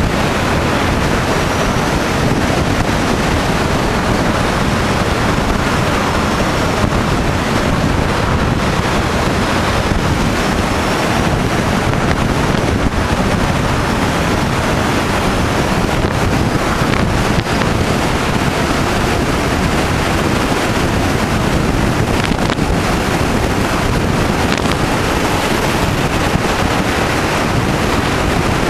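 Steady rushing wind noise on the microphone from a moving car, over the car's road and engine noise.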